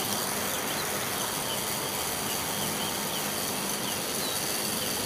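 Steady background hiss with faint, short high chirps every second or so.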